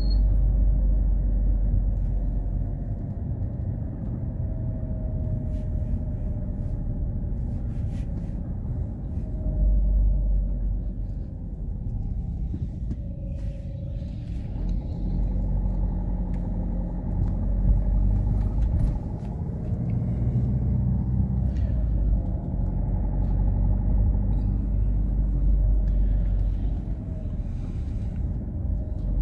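Car driving, heard from inside the cabin: a steady low rumble of engine and tyres, with a faint engine note that rises and falls as the car speeds up and slows down.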